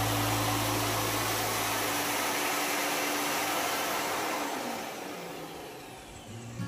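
MJ-09BG Pro Max sliding table saw and its built-in vacuum dust extractor running with a steady motor hum, then switched off: the hum stops about two seconds in and the whirring winds down and fades over the next few seconds.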